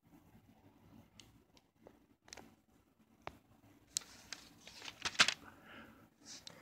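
A plastic CD jewel case being handled and turned over: scattered light clicks and rustling, busiest and loudest about four to five seconds in.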